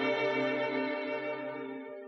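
A held chord of bowed strings that slowly fades away as the piece ends.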